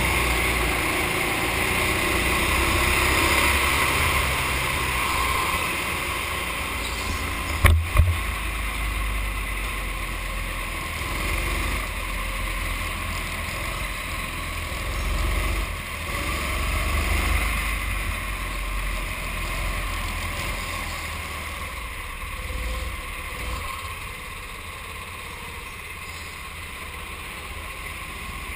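Racing kart running at speed on a track, its engine and tyre noise picked up by a camera mounted on the kart. A single sharp knock about eight seconds in.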